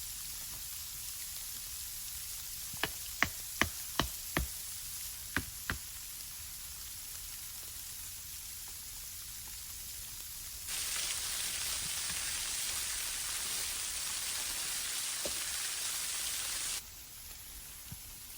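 Steady hiss of rain, with a run of about seven sharp knocks a few seconds in. About eleven seconds in, the hiss turns suddenly louder for about six seconds, then drops back just as suddenly.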